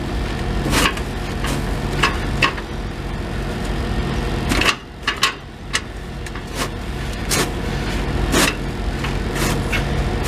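Sharp metal knocks and clanks, a dozen or so at irregular spacing, as the exhaust flex pipe is worked into place. Over a steady low engine hum from an idling diesel, which drops out briefly about halfway through.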